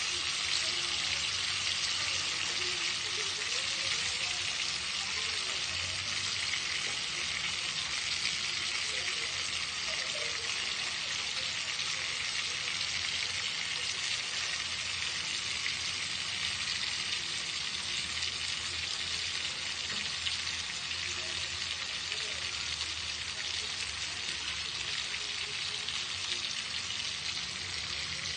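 Pork chops sizzling steadily in hot fat as they grill, an even unbroken hiss.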